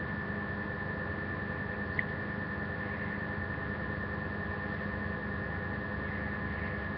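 Steady electrical hum and hiss from the webcam's microphone, with a fixed high-pitched tone and a lower hum, and a single short click about two seconds in.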